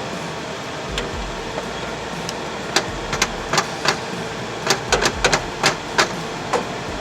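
Honda CR-V's 2.4-litre four-cylinder engine idling steadily, with a run of sharp, irregular clicks and taps from about three seconds in to near the end.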